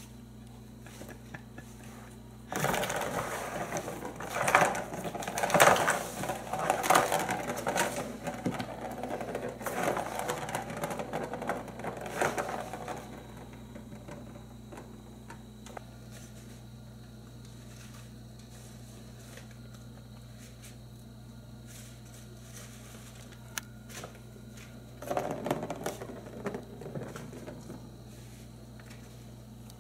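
Plastic ball rolling and rattling around the circular plastic track of a Turbo Scratcher cat toy as a cat bats it. The rattling runs for about ten seconds and comes back briefly near the end, over a steady low hum.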